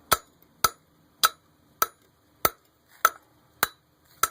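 Hammer blows on a VW Jetta turbocharger being knocked apart: eight sharp strikes at a steady pace of about one every 0.6 seconds, each with a short ring.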